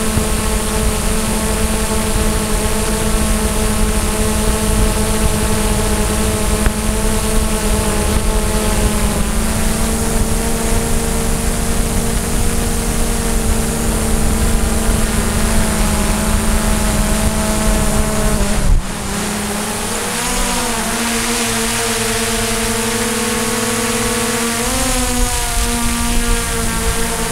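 DJI Mavic quadcopter's propellers and motors whining steadily in flight, over a low rumble. About two-thirds through, the rumble cuts off suddenly and the whine dips and rises in pitch a couple of times as the motors change speed.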